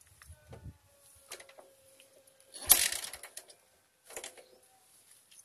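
Hands working on a motorcycle: a few light mechanical clicks and one loud sharp knock about halfway through. The engine is not running.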